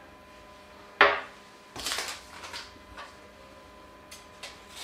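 Small kitchen handling sounds at a food processor as salt and sugar are spooned in: one sharp knock about a second in, brief scraping and rustling a second later, then a few faint clicks near the end.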